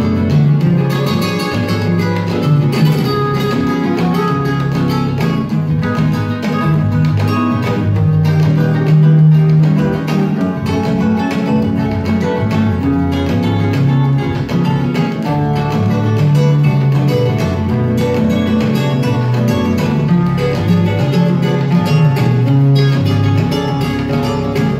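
Record playing on a home-built turntable, heard through loudspeakers: continuous guitar-led music.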